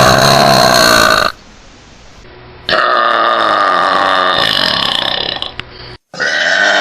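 Loud, drawn-out burps from girls, one after another: one ends about a second in, the next lasts about three seconds, and a third starts about six seconds in.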